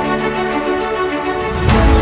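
Background music with held notes, and a sharp hit near the end.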